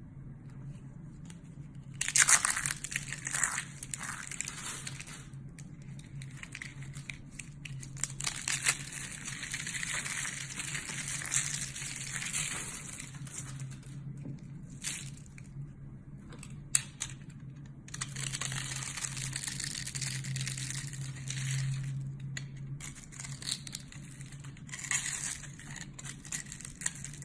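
A blade cutting and scraping through a bar of soap, in bouts of dry scraping a few seconds long broken by short pauses, with a low steady hum underneath.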